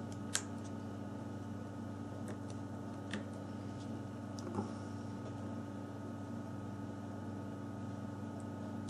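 A steady electrical hum, with three faint small clicks as the ribbon-cable connectors of a Samsung Galaxy S4 are pressed back onto its circuit board.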